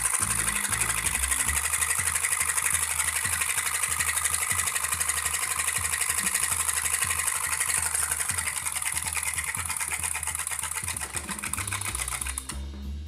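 Homemade hot-air Stirling engine running fast with a rapid, even mechanical clatter from its pistons and flywheel. The clatter stops abruptly near the end as a hand takes hold of the flywheel.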